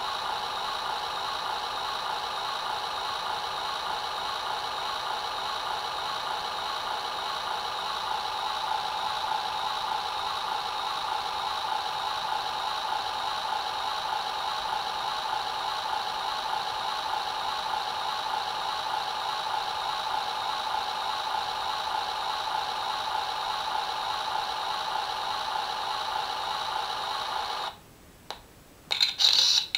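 Recorded engine-idling sound effect from a model-railway sound unit's small speaker: a steady, buzzy, unchanging loop. It stops suddenly near the end, and a couple of short camera-shutter effects follow.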